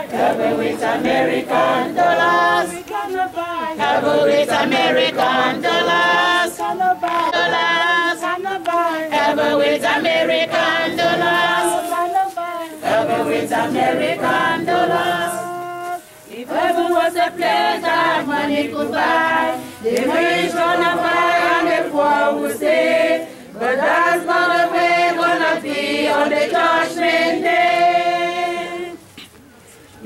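A congregation singing a hymn together without instruments, line by line with short pauses between phrases.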